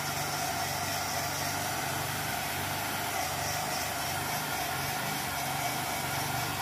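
Handheld craft heat dryer running steadily, blowing hot air, with a steady motor hum under the rush of air.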